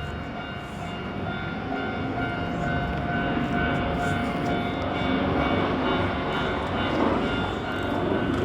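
Japanese level-crossing warning bell ringing in a steady kan-kan beat, about two strokes a second, over a rumble that grows louder as a Hankyu Kyoto Line train approaches.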